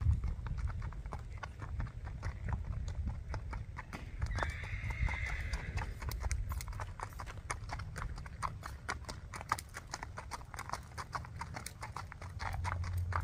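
Shod hooves of a Tennessee Walking Horse gelding striking gravel as he walks under a rider: a quick, even run of hoofbeats. A brief higher-pitched call sounds about four seconds in.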